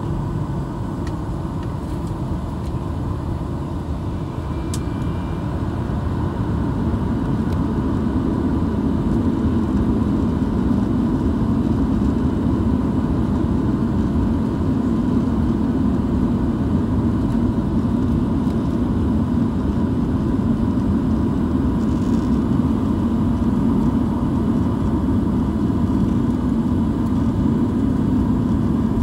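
Steady cabin noise of an aircraft in flight: a low, even rumble with a faint steady whine above it, growing a little louder about seven to nine seconds in.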